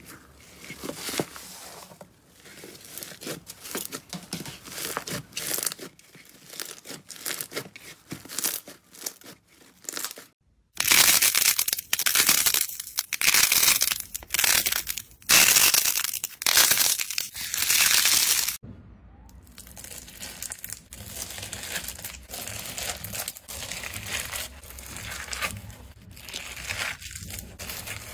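Hands squeezing and pressing slime, a dense crackling and crinkling: first bubbly foam slime pressed in a plastic tub, then, after a short break about ten seconds in, louder crackling in separate squeezes as soft clay is squished and broken, and after another short break quieter crackling of crunchy slime.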